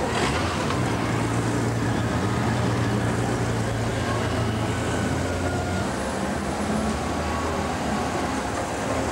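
Honda Gold Wing touring motorcycles riding slowly past one after another, their engines running with a steady low hum over street traffic noise. The engine tone shifts about six seconds in as one bike gives way to the next.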